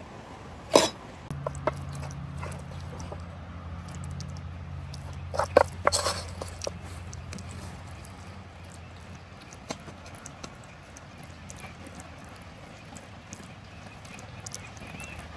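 Cooking utensils knocking: one sharp knock about a second in and a quick cluster of knocks around six seconds. After that, light scraping and ticks as a wooden spoon spreads tomato sauce over a bread bun.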